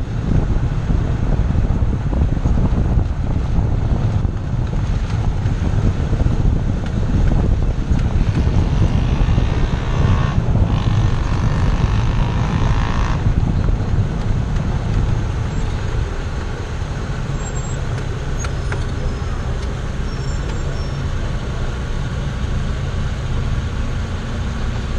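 A Chevrolet Zafira running, with dense low rumbling noise for the first fifteen seconds or so, which then settles into a steadier, slightly quieter engine hum. A higher rushing sound joins for about three seconds, some ten seconds in.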